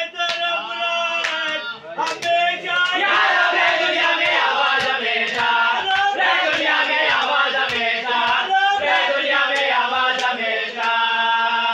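Men's voices chanting a noha, an Urdu mourning lament, in unison: a leading voice is joined by many voices about three seconds in, and the chant ends on a held note. A steady beat of thumps, about two a second, runs under the chant.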